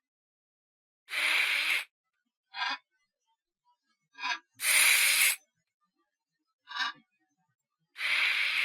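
Tarantula hissing in repeated bursts: three long hisses of just under a second each, a few seconds apart, with shorter, softer hisses between them.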